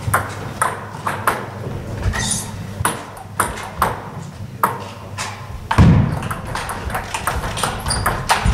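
Table tennis balls clicking off bats and the table in a rally, sharp irregular clicks. About two thirds of the way through comes a single heavy thud, the loudest sound.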